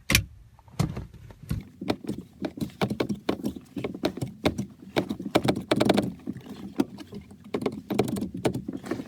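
Driver's airbag module being pressed into a Volvo S40 steering wheel hub: a sharp click right at the start, then many irregular plastic clicks, taps and knocks as it is pushed and handled.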